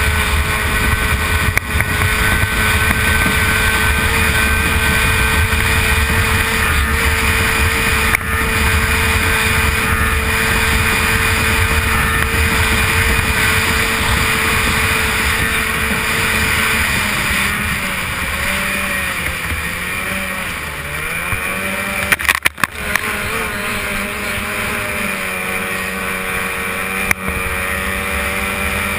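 Two-stroke racing outboard on an A-Stock hydroplane running flat out, with rushing wind and water. Its pitch holds steady, then wavers and dips about two-thirds of the way through before settling a little lower. A brief clatter comes just after the dip.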